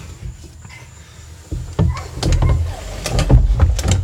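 A person sliding down an enclosed plastic tube slide: a low rumble of body and shoes rubbing along the plastic, with repeated knocks, getting louder from about halfway.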